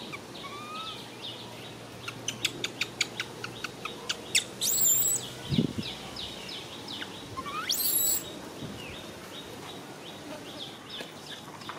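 Birds chirping: rapid short high chirps throughout, with a run of quick clicks about two to four seconds in and sharply rising whistles about four and a half and eight seconds in.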